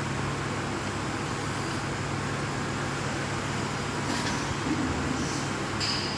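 CNC bending machine (press brake) running: a steady mechanical hum with a low drone underneath, and a short high whine near the end.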